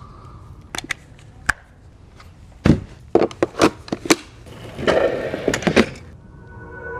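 Sharp knocks and clicks of hard items being handled and set down, a few scattered and then several in quick succession about three seconds in, followed by a short rustle. Music with held tones comes in near the end.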